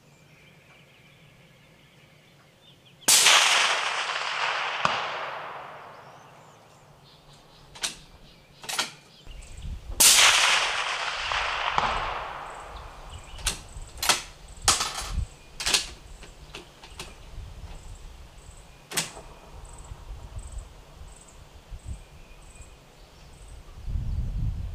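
Two shots from a Steyr SSG 08-A1 .308 Winchester bolt-action rifle fitted with an Otter Creek Labs Hydrogen suppressor, about seven seconds apart. Each shot ends in a long echo that fades over a few seconds. Several short, sharp clicks and knocks come between and after the shots.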